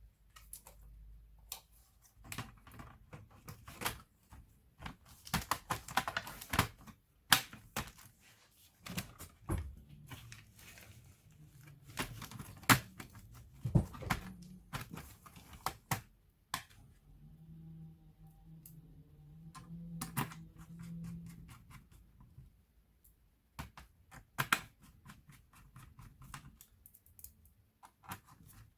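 Irregular clicks and taps of small plastic and metal laptop parts being handled, several sharper clicks standing out, with a faint low hum for a few seconds past the middle.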